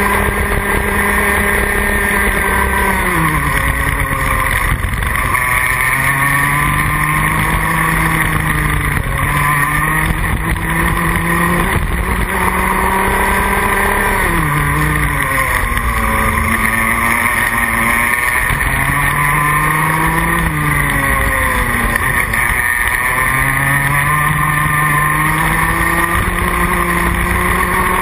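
Rotax Max Junior kart's 125cc two-stroke engine at racing speed through a lap. Its note climbs slowly along the straights and drops sharply several times as the driver lifts off for corners, then picks up again.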